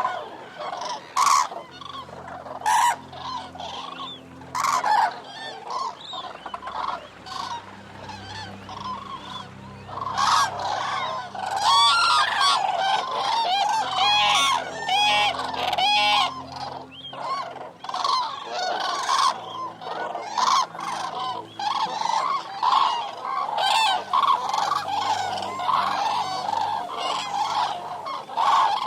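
A flock of Eurasian cranes calling: many loud, overlapping trumpeting calls, thickening into a dense chorus about ten seconds in.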